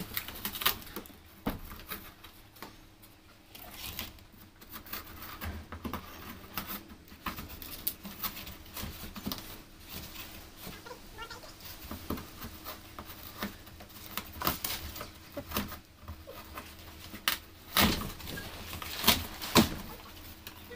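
Cardboard carton of an air cooler being torn and cut open by hand: irregular ripping, crackling and scraping of the cardboard, with a few louder rips near the end.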